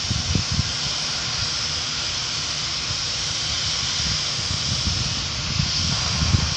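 Wind buffeting the microphone in uneven low gusts, over a steady high hiss.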